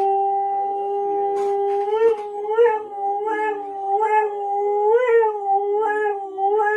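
Husky howling with its head thrown back: one long, steady note, then from about two seconds in the pitch wavers, rising and falling a little under twice a second.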